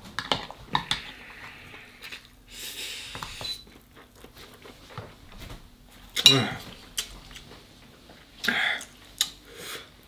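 Mukbang eating sounds: a metal fork clicking and scraping against a lobster shell as noodles are twirled, with noodles being slurped and chewed. The loudest slurp comes about six seconds in.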